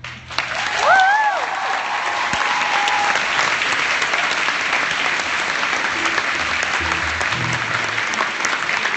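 A concert audience applauding, the clapping starting abruptly and holding steady. About a second in, one rising-and-falling cheer cuts through the clapping.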